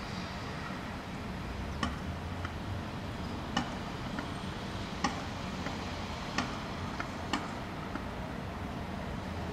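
Steady low rumble of distant city traffic, with a scattering of short, sharp ticks, nine or so, from about two seconds in to about eight seconds in.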